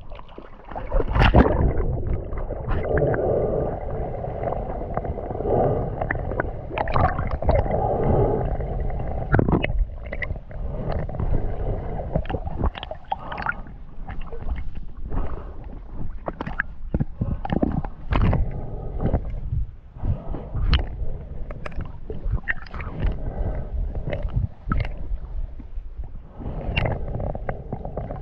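Muffled gurgling water noise from a camera at or under the water's surface during a snorkel swim: a deep rumble of moving water and bubbles with many short knocks and splashes.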